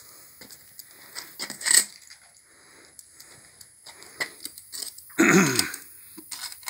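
Light scattered taps and scuffs of shoes walking on a concrete floor. About five seconds in comes a short voiced sound that falls in pitch.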